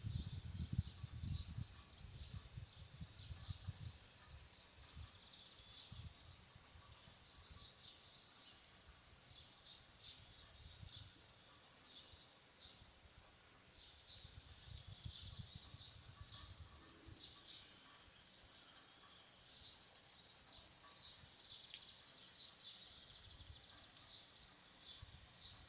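Faint countryside rain ambience: a soft, even hiss under many short, high chirps that repeat throughout. Low rumbling gusts come in the first few seconds and again about halfway through.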